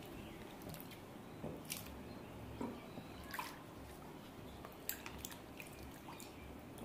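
Vegetables being swished by hand in a bucket of water and lifted out, with faint drips and several small, separate splashes.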